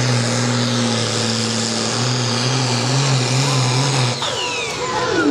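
Ford farm tractor's diesel engine pulling a weight-transfer sled under full load, holding a steady note that wavers slightly near the end of the pull. About four seconds in, the engine note cuts off and its pitch falls away as the power comes off.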